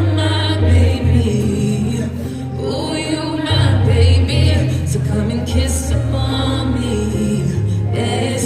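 Live R&B band playing, with deep held bass notes that change every second or so under keyboard chords, and a woman singing drawn-out vocal runs with vibrato over it.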